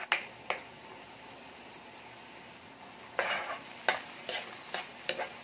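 Sliced hotdogs sizzling in butter and garlic in a frying pan, with a spatula scraping and tapping the pan as they are stirred: a couple of strokes at the start, then a run of strokes from about three seconds in.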